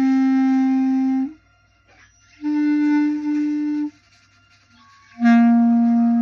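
Clarinet playing three long held notes, each about a second and a half, with short pauses between them; the middle note is a little higher than the first and last.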